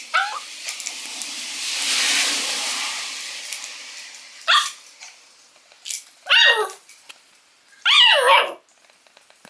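Shiba Inu puppy giving high yipping barks that fall in pitch: a short one at the start, then three more in the second half, the last two the longest. Between them, a few seconds of rustling noise.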